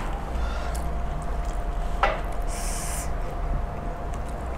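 A light knock on the glass tabletop about two seconds in, then a short hissing breath, over a faint steady room hum.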